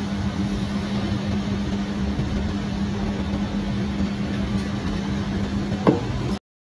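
Steady low hum with a constant tone, and about six seconds in a single knock as a drink can is set down on a table top. The hum cuts off suddenly just after.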